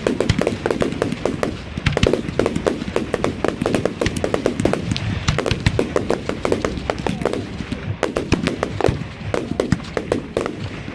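Fireworks display: a dense, rapid run of sharp bangs and crackles, many a second, over a low rumble, with brief lulls near the end.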